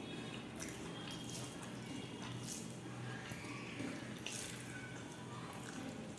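Wet eating sounds: irregular smacks and squelches of food being chewed and handled, a few sharp clicks a second.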